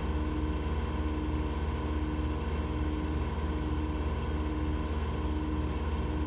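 Engine running steadily at full throttle with no load. A higher tone pulses on and off about once a second over the even low rumble.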